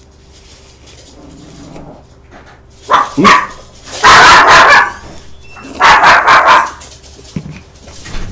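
A dog barking: a couple of short yips about three seconds in, then two loud barks about two seconds apart.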